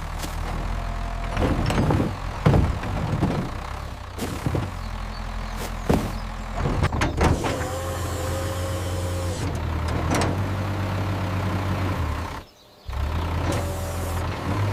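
Telehandler engine running steadily, with several sharp clanks and knocks in the first half and a brief whining tone about eight seconds in. The engine sound cuts out for a moment near the end.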